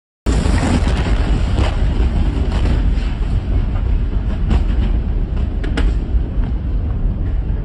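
Fire-and-smoke explosion sound effect: bursts in suddenly at full loudness, then a deep rumble with scattered crackles and pops that slowly dies down.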